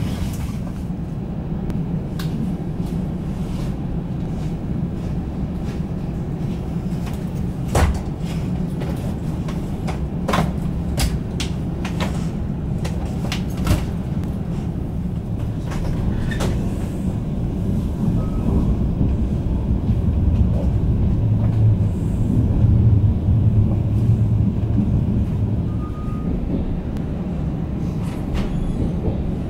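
VR double-deck InterCity train running, heard from inside the carriage: a steady low rumble with scattered sharp clicks and knocks as the wheels cross rail joints and points, the rumble swelling for a few seconds past the middle.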